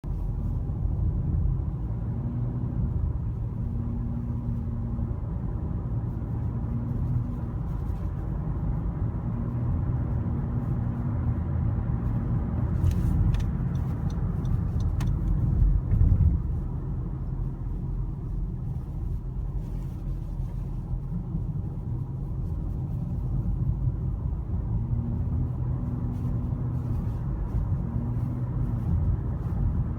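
2017 Honda Civic EX running, with a steady low rumble and a hum that comes and goes in stretches of a few seconds: the humming that shows up at around 1800 rpm. A few light clicks about halfway through.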